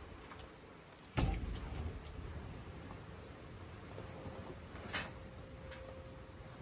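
Heavy canvas tent roof being pulled and handled over a metal tent frame: low rustling, a dull thump a little over a second in, and a short sharp click about five seconds in.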